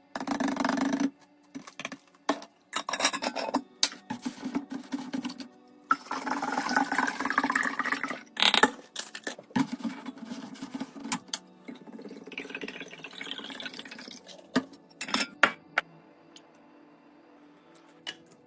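Liquid poured into a container, its pitch rising steadily as the container fills. Short bursts of handling and sharp clicks and knocks from containers come before and after.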